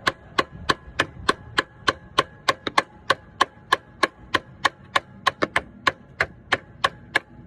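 Rapid, even tapping on the side of a Brinks padlock, about three strikes a second, stopping near the end. The lock is held under pulling tension while it is tapped, to jar the latch free without the key.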